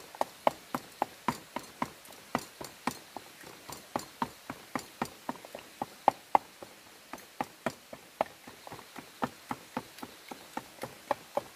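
A steady run of sharp knocks, about three a second, somewhat uneven in spacing and strength.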